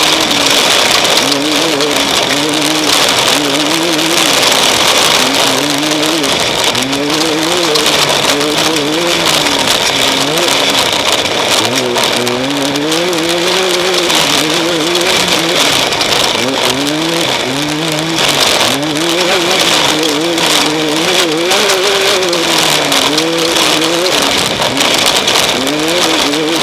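Off-road race vehicle's engine revving up and down over and over as the throttle is worked, its pitch rising and falling every second or two over a steady loud hiss.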